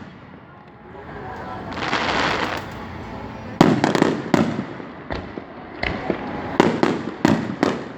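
Aerial fireworks going off. A short rushing hiss comes about two seconds in, then a quick run of about ten sharp booms, several only a fraction of a second apart.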